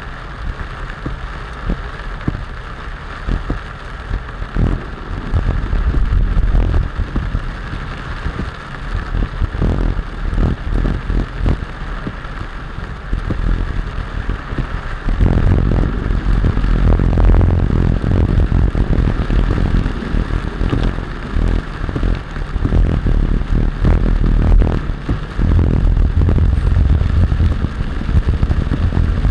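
Vehicle on the move: a steady low rumble of road and engine noise with many scattered crackling, clattering hits, getting louder about halfway through.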